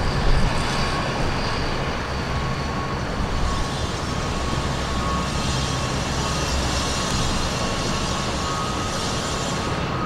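Diesel engine of an NYC Subway R156 work locomotive running steadily as the locomotive rolls slowly past on the rails, with a faint steady whine above it.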